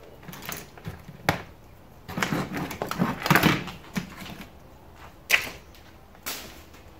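Clicks, knocks and light clatter of a circuit board, wires and hand tools being handled on a workbench, busiest a couple of seconds in, with a sharp click about a second in and another near the end.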